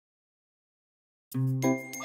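Dead silence for just over a second, then children's cartoon music starts with a low bass note and bright pitched tones.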